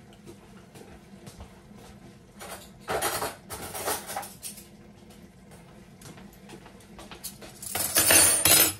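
Kitchen utensils and containers clattering and scraping against a cooking pot. There are two louder bursts, about three seconds in and again near the end, with small clicks between them over a faint steady hum.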